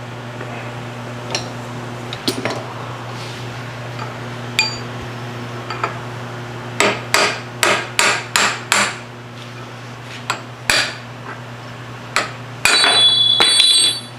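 Hammer tapping on steel: a few scattered taps, then a quick run of about six, and one more a little later. Near the end comes a loud metallic sound with a ringing tone, lasting about a second. A steady low hum runs underneath.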